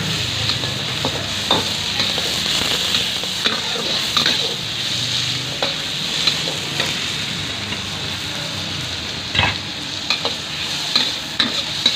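Fried rice sizzling in a wok, with a metal spatula scraping and clanking against the pan at irregular intervals, one harder knock about nine and a half seconds in.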